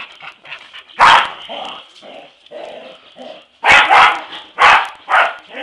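Dogs play-fighting, barking in loud, sharp outbursts: one about a second in, then four in quick succession in the second half, with quieter vocal sounds between.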